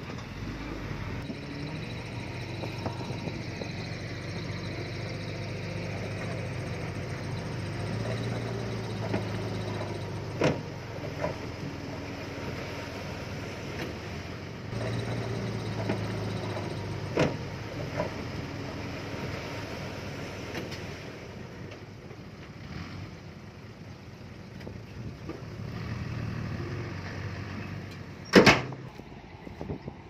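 Diesel engine of earthmoving machinery running and working, swelling and rising and falling in pitch twice under load. Several sharp knocks cut through it, the loudest near the end.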